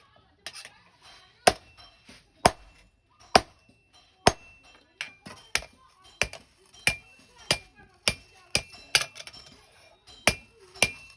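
Blacksmith's hammer striking metal, sharp blows that each ring briefly, about one a second at first and quickening in the second half.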